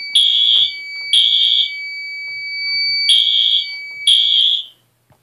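Fire alarm horns of an SK4 fire alarm system sounding together in the temporal-three evacuation pattern: half-second blasts a second apart, a pause of about a second and a half, then two more blasts, over a steady high tone. Everything cuts off suddenly near the end as the alarm is silenced.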